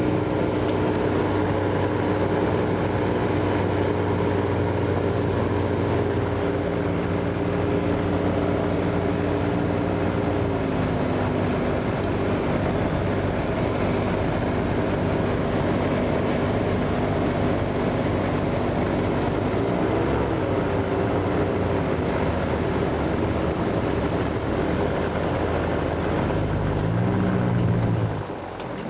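SeaRey amphibian's engine and pusher propeller droning steadily from inside the cockpit, with a rush of airflow. The engine note drops in pitch about ten seconds in, wavers around twenty seconds, and the sound falls off sharply just before the end.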